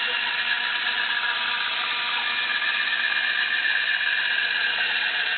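Steady mechanical whirring noise from a workshop machine, with a faint high whine over most of it.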